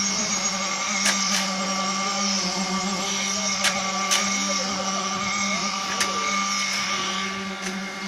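Concrete pump with mixer running with a steady, even hum while concrete is pumped through the delivery hose. A few sharp knocks sound at irregular moments.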